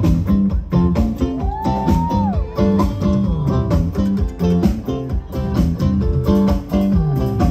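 Live rock band playing an instrumental passage: drums keeping a steady beat under a stepping bass line and guitar. About a second and a half in, a lead note slides up, holds for about a second, then falls back.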